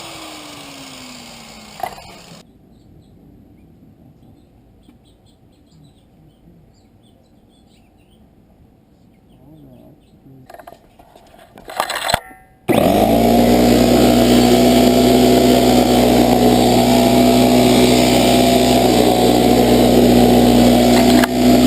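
A grinder whining down to a stop, its pitch falling, then a quiet stretch with a few light clicks. About halfway through, the grinder is running again: a loud, steady whine over a hiss, as the exhaust pipe is ground down to fit.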